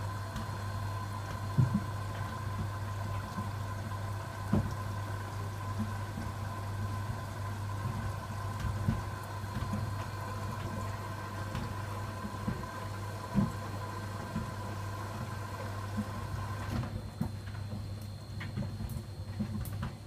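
Beko front-loading washing machine in its rinse cycle: the drum motor hums steadily while water sloshes in the drum, with a few thuds as the wet laundry drops. A higher whine from the motor cuts out about three-quarters of the way through.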